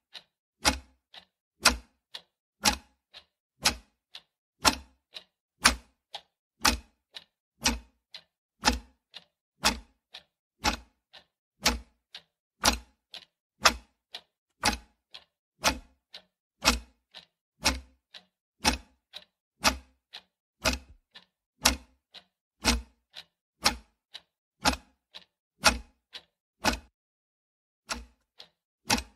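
Ticking-clock sound effect marking a countdown timer: steady tick-tock clicks about two a second, alternating louder and softer, with a brief break near the end.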